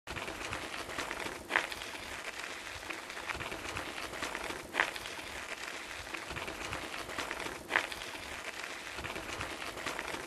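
Crunching steps on track ballast and debris with outdoor wind noise, plus a short, sharp, high sound repeating about every three seconds.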